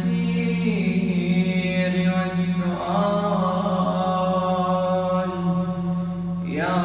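A man's solo voice chanting an Arabic Ramadan supplication (du'a) in long, drawn-out melodic notes, with a rising slide near the end.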